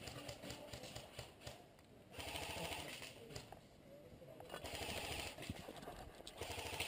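Airsoft guns firing at a distance: irregular runs of light clicking pops.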